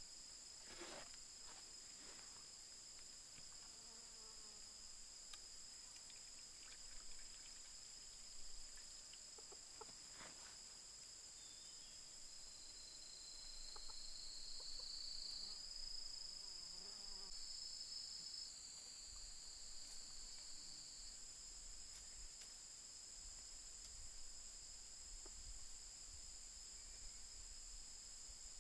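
Faint, steady high-pitched chirring of forest insects, with a second, slightly lower insect note joining in for several seconds in the middle.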